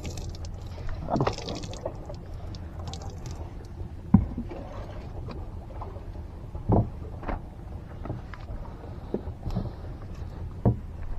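Water lapping against a small wooden fishing boat, with a steady low rumble and a few sharp knocks on the boat. The loudest knock comes about four seconds in.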